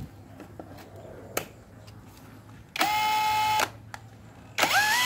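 18V brushless cordless hammer drill in second gear, its motor rewound with fewer turns for more speed. After a few light handling clicks, the motor spins up with a rising whine, runs for about a second and stops. Near the end it spins up again and holds a steady high whine at top speed, about 1,200 rpm.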